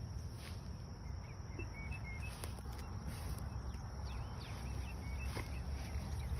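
Outdoor ambience: small birds chirping in short, repeated calls over a steady low rumble.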